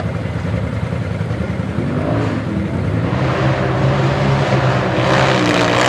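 Tube-chassis offroad race buggy's engine running hard under load on a steep dirt hill climb. The pitch steps up partway through, and the engine grows louder and rougher toward the end.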